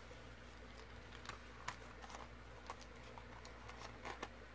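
Faint scattered light clicks and rustles of paper being handled as sheets of tracing paper and graphite paper are shifted and taped down on a tabletop.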